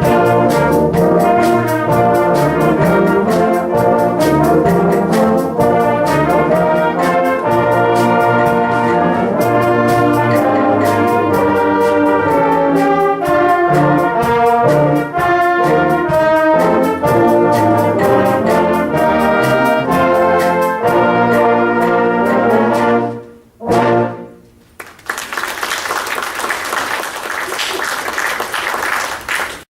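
Brass band playing the closing bars of a piece, ending on a short final chord about 24 seconds in, followed by audience applause.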